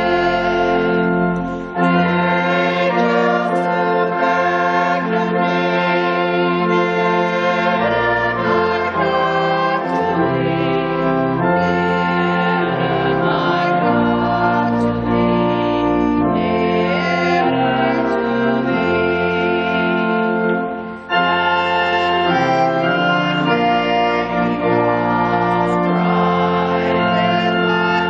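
Slow church music of long, sustained chords, moving in phrases with brief breaks about two seconds and twenty-one seconds in.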